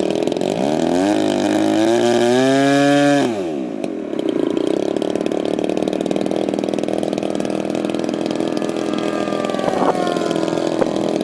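Radio-controlled model aircraft engines running with a steady buzz; one revs up, its pitch rising for about two seconds, then drops back abruptly about three seconds in, and the steady running carries on.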